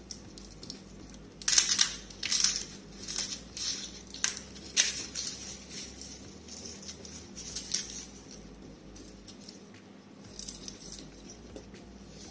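A garlic bulb being crushed and broken apart by hand on a wooden cutting board, its dry papery skins crackling and rustling in a run of loud bursts over the first few seconds, then a few softer rustles as the loose skins are picked at.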